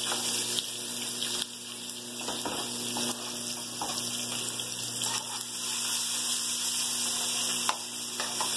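Onion, garlic and ginger sizzling in hot oil in a pan, a steady hiss broken by a few sharp pops or clicks.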